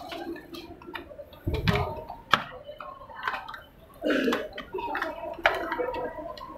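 Footsteps and taps of a crowd of visitors on a staircase, scattered sharp clicks among a low murmur of voices, with a dull thump about a second and a half in.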